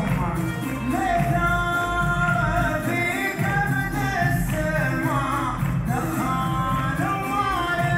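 Loud amplified stage music with a singing voice over instrumental backing, recorded through a mobile phone's microphone.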